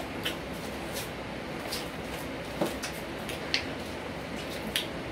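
People sucking and slurping on freeze pops: a handful of short, sharp slurps about a second apart over a steady background hiss.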